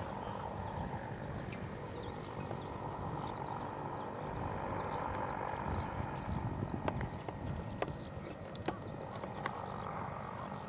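Distant airship propeller engines droning steadily as the blimp climbs away, with a few sharp clicks in the second half.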